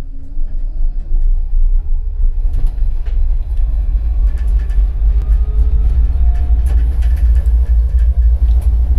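Tram running along the track, heard from inside the driver's cab: a loud, steady low rumble with a faint motor whine that slowly shifts in pitch and occasional clicks from the wheels and running gear.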